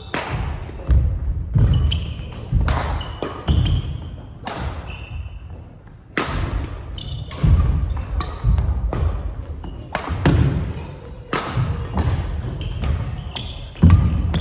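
Badminton singles rally: rackets cracking against the shuttlecock and players' shoes thudding and squeaking on the wooden gym floor, every second or so, echoing in the hall. The heaviest thud comes near the end, as a player lunges for a low shot.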